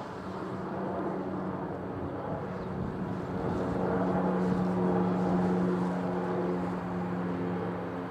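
RC model airplane's motor droning steadily in flight, growing louder toward the middle and easing off near the end as it passes.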